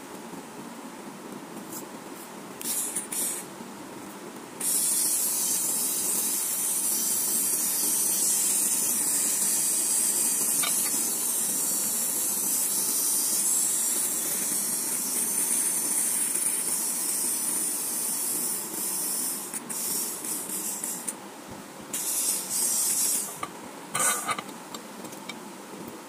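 Paper tape being peeled off its roll and wrapped around a motor casing: a long, high hissing rasp, with shorter bursts of the same near the start and near the end.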